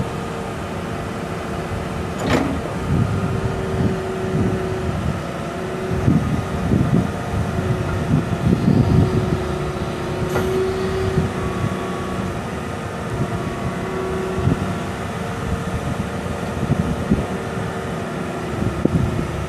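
Komatsu PC160LC-7KA excavator's 4.5-litre four-cylinder diesel engine running and surging under load as the boom, stick and bucket are worked, with a steady whine over it. Two sharp metallic clanks come about two seconds in and about ten seconds in.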